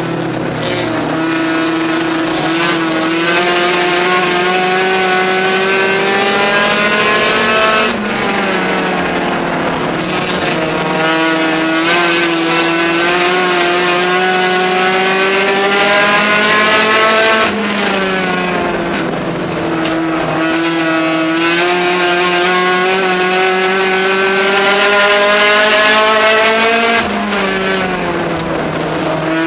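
Race car engine heard from inside the car at speed on an oval. The pitch climbs steadily along each straight, then drops sharply as the driver lifts for the turn; this happens three times, about every nine and a half seconds, once per lap.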